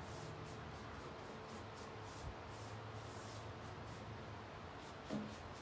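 Paintbrush strokes on a wooden desk: soft, even swishes repeating about three times a second. One brief bump comes a little after five seconds in.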